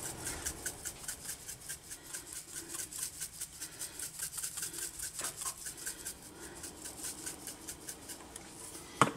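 Dried parsley flakes being shaken from a spice jar over a bowl of sauced chicken wings: a soft, fast, even run of scratchy shakes. A louder knock comes right at the end.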